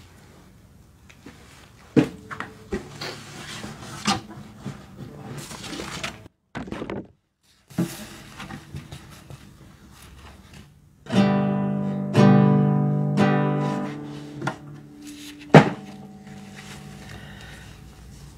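Acoustic guitar being handled, with scattered knocks and a few plucked notes. Then two loud strummed chords a little past halfway ring out and fade, and a sharp knock follows.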